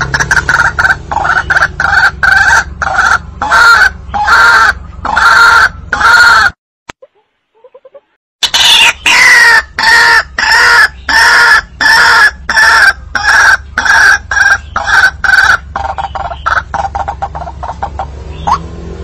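White-breasted waterhen calls from a hunting lure recording: a fast run of repeated harsh notes, about two to three a second, over a low hum. The calling cuts out for about two seconds partway through, then picks up again.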